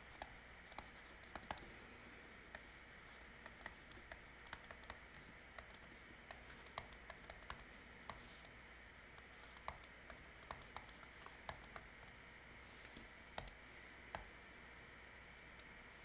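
Near silence broken by faint, irregular taps of a stylus on a tablet screen during handwriting, about one or two a second.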